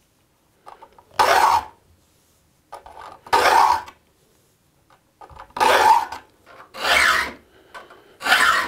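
Triangular saw file being pushed across the steel teeth of a crosscut hand saw: five separate strokes of about half a second each, with pauses between, each filing a tooth down to a fresh point.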